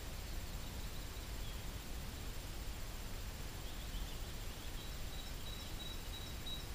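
Forest ambience: a steady low rumble and hiss with faint, high bird chirps, including a string of short repeated notes in the second half.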